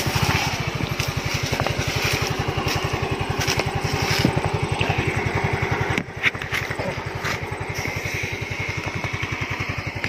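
A small motorcycle engine running steadily at low revs, with an even, fast putter. About six seconds in it dips briefly, with a few light clicks.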